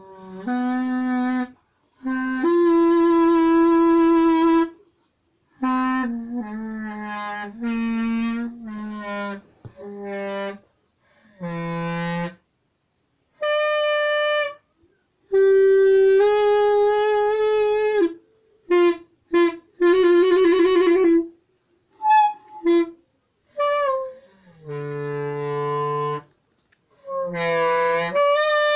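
Clarinet played solo: a string of separate held notes with short breaks between them, a run of short, quick notes with a wavering trill about two-thirds of the way through, and a pitch rising near the end.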